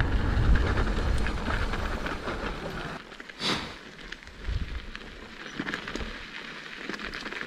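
Wind rush and tyre noise from a mountain bike rolling over a dirt trail, with a low rumble; it drops off about three seconds in, leaving a short whoosh and then scattered crackles and ticks.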